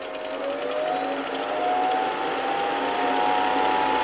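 1953 Bolex M8 8mm film projector running after a service, its motor whine dipping briefly and then rising in pitch as the speed control is turned up, then holding a steady speed. It is running properly.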